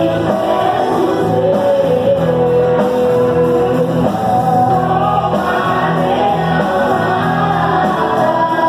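Worship song: singing with held, sliding notes over a steady instrumental accompaniment.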